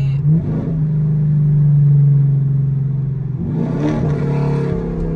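Fifth-generation Camaro SS 6.2-litre V8 running at a steady drone while driving, then its pitch climbs as it accelerates about three and a half seconds in.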